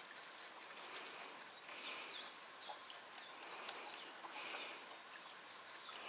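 Faint outdoor ambience of birds chirping: short sliding chirps and calls that come and go every couple of seconds, with one sharp click about a second in.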